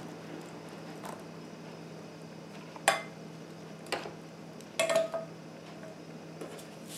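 A few separate clinks and knocks of kitchenware as a metal mesh sieve and a saucepan are handled and set down after straining milk, the knock about five seconds in ringing briefly.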